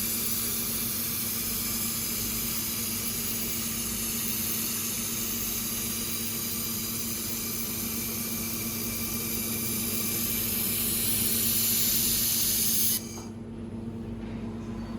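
Automatic laser welding machine running: a steady hiss, typical of shielding gas and air flow at the weld head, over a steady machine hum. The hiss cuts off suddenly near the end, leaving only the hum.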